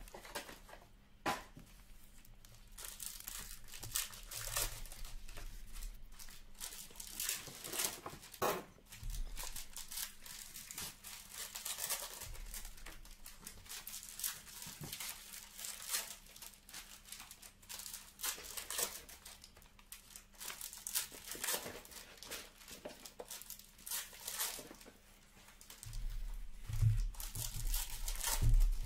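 Trading-card packs and cards handled: irregular crinkling and tearing of pack wrappers and the crisp rustle of cards being flicked through. Near the end, several dull knocks as stacks of cards are tapped and set down on the table.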